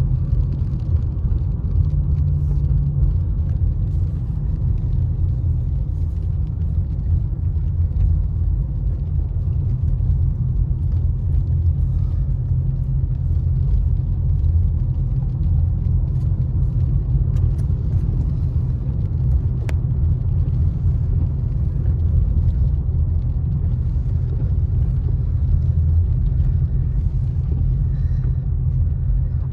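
Steady low rumble of a car's engine and tyres heard from inside the cabin while driving on a wet road.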